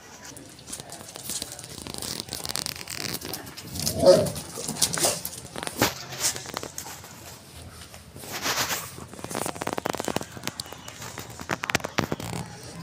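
A Labrador and a Pakistani bully dog play-fighting, the bully mouthing the Labrador's head, with scuffling and rustling noises. One short, loud dog vocalization comes about four seconds in.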